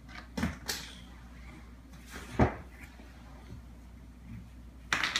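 A few scattered light knocks and taps from toys being handled on a table, the loudest about two and a half seconds in and a short cluster near the end, over a steady low hum.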